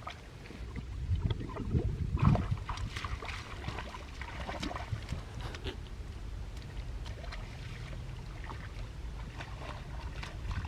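Shallow creek water sloshing and splashing in irregular bursts, busiest in the first half, over a steady low rumble.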